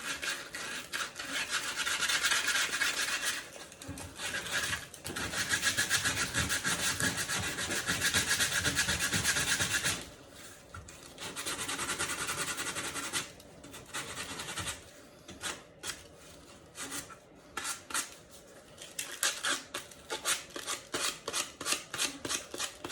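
Hand sanding a foam core shoe form with folded 100-grit sandpaper: long stretches of continuous scratchy rubbing with brief pauses, then a run of short, separate back-and-forth strokes in the second half.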